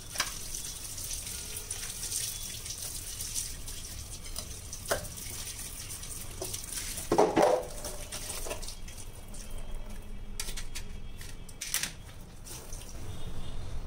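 Tap water running and splashing over a stainless steel chimney filter plate being rinsed in a kitchen sink, with a louder clatter about seven seconds in. The water sound fades after about nine seconds, and a few light knocks follow.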